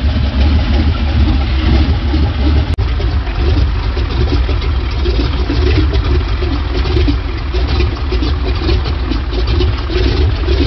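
1908 Daimler Knight 6.3-litre inline-four sleeve-valve engine running steadily at idle, with a momentary break in the sound about three seconds in.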